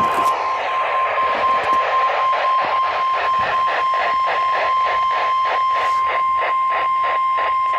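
NOAA Weather Radio warning alarm tone: one long, steady high tone over radio static, signalling that a warning message follows. The static pulses about four times a second in the second half.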